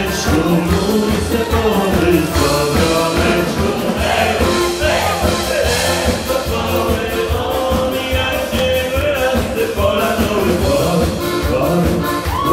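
Upbeat dance music with singing over a steady, driving beat.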